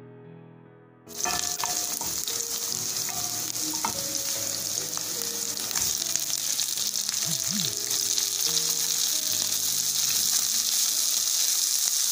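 Onions, carrot strips and green beans sizzling loudly in hot oil in a frying pan, stirred with a wooden spoon. The sizzle starts abruptly about a second in and stays even, with a few light clicks from the stirring.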